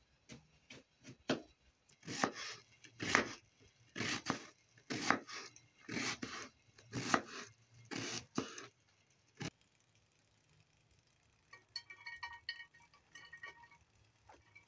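Knife chopping a peeled onion on a plastic cutting board, sharp strokes about once a second for roughly nine seconds. Then a few light glassy clinks as the chopped onion is swept off the board into a glass dish.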